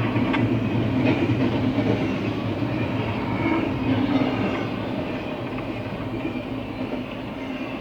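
CSX intermodal freight train rolling past, a steady rumble and clatter of its cars' wheels on the rails with a few faint clicks, easing slightly in the second half.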